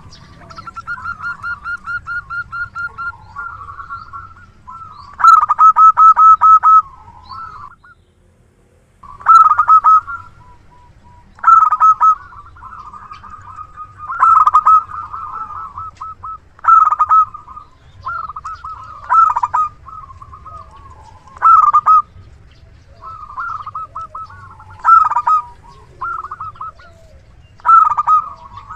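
Local zebra dove (perkutut) singing its cooing song over and over: loud phrases of rapid, stuttering coo notes, about one phrase every two to three seconds, with a short pause about eight seconds in.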